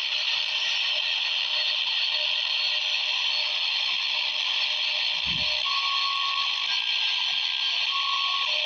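Quansheng UV-K6 handheld radio's speaker hissing with receiver static while tuned in upper sideband on the 10-metre band. Faint steady whistle tones come and go in the static. There is a brief low thump about five seconds in.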